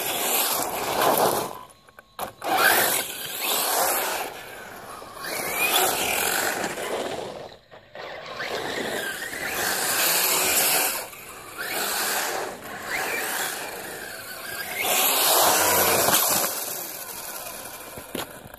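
HPI Trophy Flux 1/8 buggy's brushless electric motor whining and its tyres hissing on tarmac as it runs past close by over and over, each pass swelling and fading, about six times.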